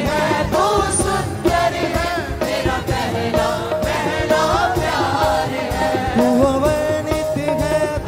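Live Christian worship song from a band with keyboards, electric guitars and drums, a melodic lead line gliding over the steady accompaniment.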